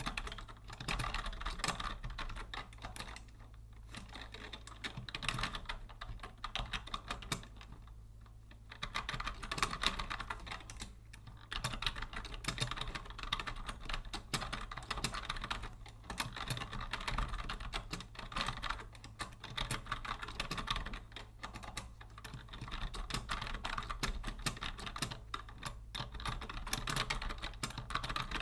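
Typing on a vintage Logitech Deluxe 104 wired keyboard: a continuous clatter of keystrokes, broken by a few brief pauses, over a faint steady low hum.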